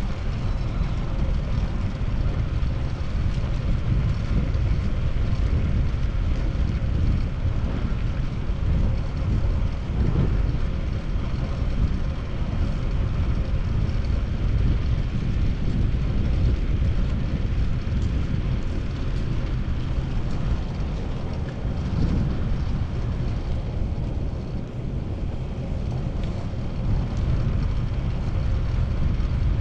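Steady low wind rumble on a chest-mounted GoPro's microphone while riding a fixed-gear bicycle, with road and traffic noise underneath.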